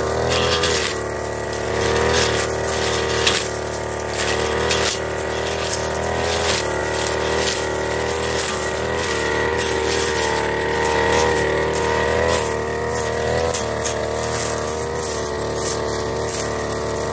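Two-stroke backpack brush cutter running steadily at high speed while it cuts through thick cogon grass, with frequent crackles of stalks being cut.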